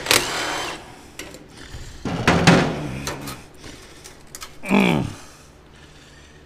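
Hand tools working a steel exhaust band clamp on a truck's exhaust pipe, making two bursts of metal scraping and rattling with a few sharp clicks between them.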